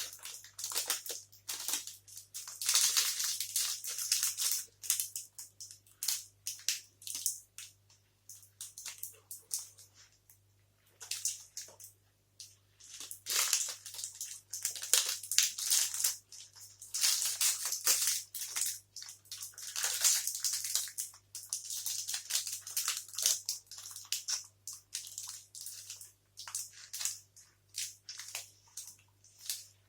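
Close-up chewing of a soft, sticky fudge protein bar: irregular wet, clicky mouth sounds in bursts, with a steady low electrical hum underneath.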